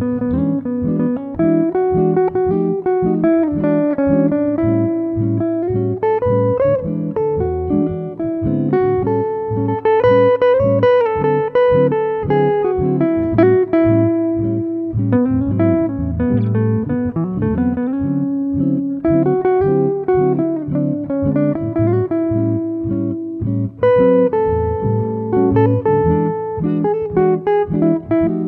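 Background music: a plucked guitar melody over a steady low bass line.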